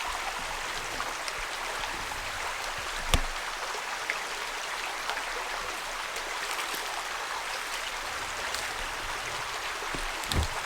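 Steady rushing background noise, with a sharp click about three seconds in and a low thump near the end.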